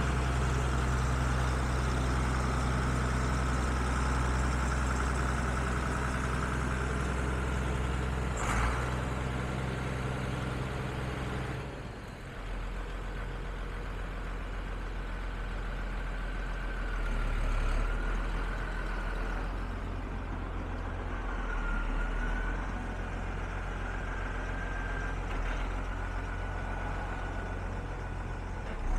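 Case IH 2294 tractor's six-cylinder diesel engine running as the tractor drives about, with a steady high whine over the engine. A sharp click comes about eight seconds in, and around twelve seconds in the engine note drops lower and quieter, the whine wavering for the rest.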